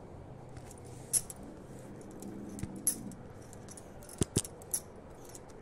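A handful of light clicks and small rattles over faint room noise, two of them in quick succession a little after four seconds in.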